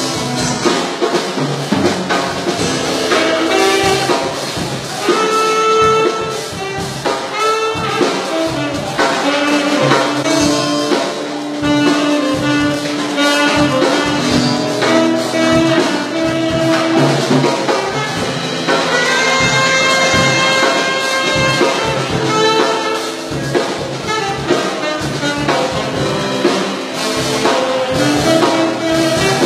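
Jazz music with brass horns playing held notes over a drum kit.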